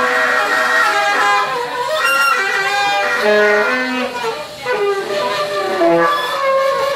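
Free-improvised live music on saxophones: several long, overlapping held notes that shift pitch every second or so.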